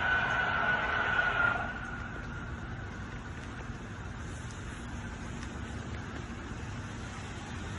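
A loud, steady, unexplained droning tone in the air that cuts off about a second and a half in, leaving a quieter steady background rumble.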